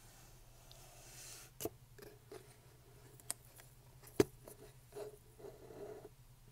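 Fingernails tapping and clicking on the plastic lid of a paper coffee cup and its green splash stick: a scattering of sharp, separate clicks, the loudest about four seconds in.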